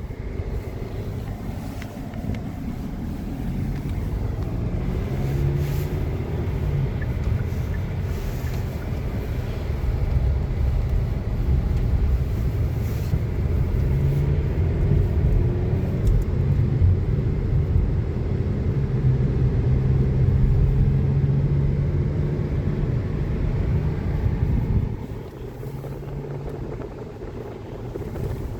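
Strong gusty wind buffeting the microphone: a loud low rumble that swells and eases and drops off about 25 seconds in.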